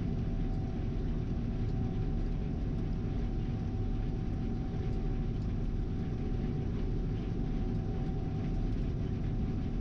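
Gleaner R72 combine running steadily while harvesting soybeans, heard from the cab: a constant low drone with a faint steady whine above it.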